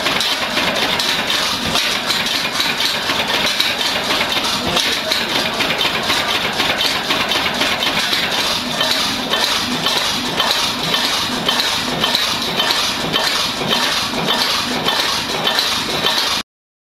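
Fairbanks-Morse 15 HP stationary engine running steadily, with a continuous metallic clatter of evenly spaced clicks. The sound cuts off suddenly near the end.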